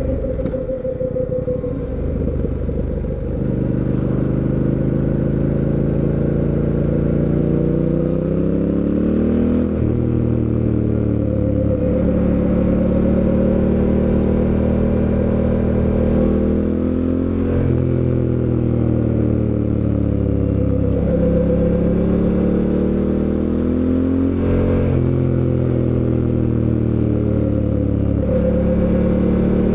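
2024 Fantic Caballero 700 Scrambler's 700 cc parallel-twin engine under way, accelerating. The pitch climbs and drops sharply at each upshift, several times over.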